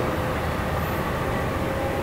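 Amtrak passenger cars rolling past: a steady rumble of steel wheels on the rails with a faint steady whine.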